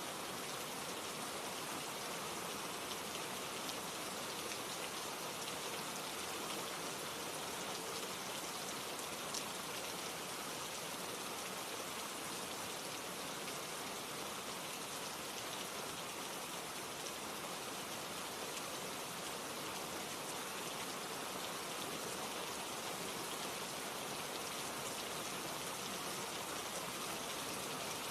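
Steady rain falling, an even hiss of patter with a few single drops ticking now and then.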